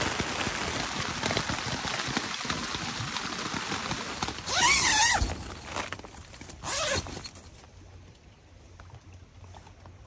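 Steady rain drumming on a thin nylon tent, heard from inside. About four and a half seconds in comes a short sound with a wavering, up-and-down pitch, and after it the rain falls away to near quiet.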